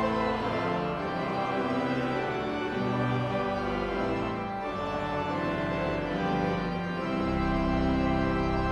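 Organ music: slow, sustained chords, with a deep bass chord entering about seven seconds in.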